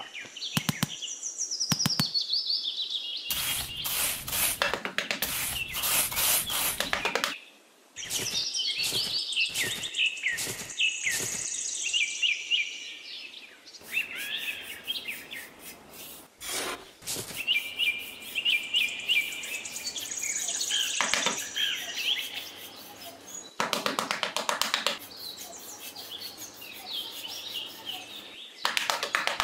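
Small birds chirping and twittering, with several bursts of short knocks and scrapes.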